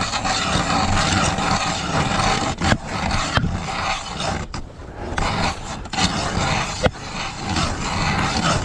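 Ice auger drilling a hole through lake ice 8 to 10 inches thick: a steady noise with a few brief breaks.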